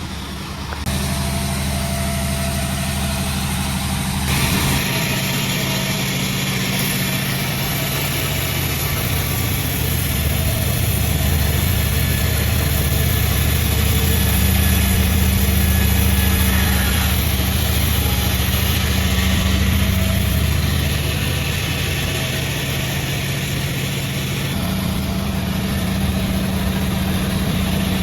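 Sawmill at work: a steady engine drone with the hiss of the saw cutting through wadang wood, which gets louder about four seconds in.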